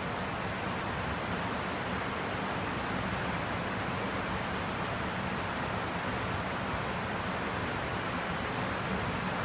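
Steady, even rushing noise that stays at one level throughout, with no distinct events.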